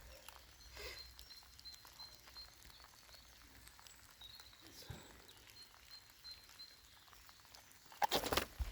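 Quiet outdoor ambience with faint, short high chirps, like small birds calling. Near the end comes a loud burst of rustling and knocking handling noise close to the microphone.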